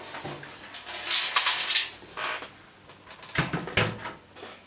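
Metal parts of a desktop PC being handled: a quick run of clicks and rattles about a second in, then a few knocks and low thumps past the middle.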